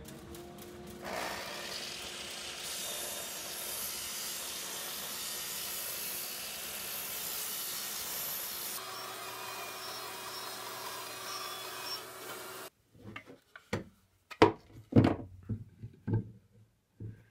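Makita miter saw's motor spinning up, then its blade cutting down through a thick board with a steady loud sawing noise that runs for about eleven seconds and stops abruptly. After it come a handful of short, sharp knocks and scrapes.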